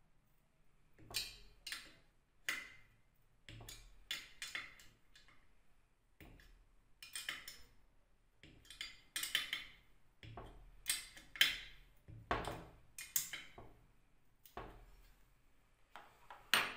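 Irregular metallic clicks, taps and scrapes of hand work with a small tool on the steel mounting bracket of an electric motor, with a sharp click near the end.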